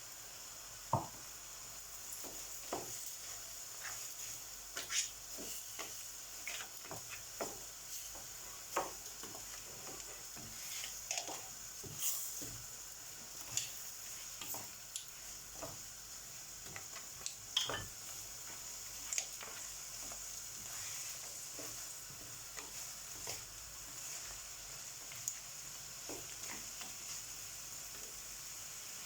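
Rice frying in hot oil with the sofrito and seafood in a pan, a steady sizzle, while a spoon stirs it with irregular light scrapes and knocks against the pan: the rice being toasted just after it goes in.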